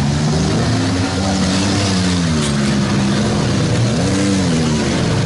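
Minivan engines revving in a demolition derby, the pitch climbing and falling as the vans drive and back into each other; one rev swells up and drops back about four seconds in.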